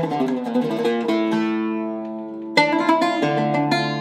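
A Zaryab oud with a cedar soundboard and African rosewood back, played solo with a plectrum. A quick run of notes gives way to a note left ringing and fading, then a sharp new stroke about two and a half seconds in starts another phrase.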